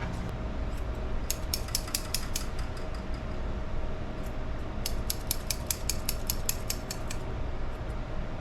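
Grooming shears snipping through a puppy's coat in two quick runs of snips, the second longer, over a steady background hum.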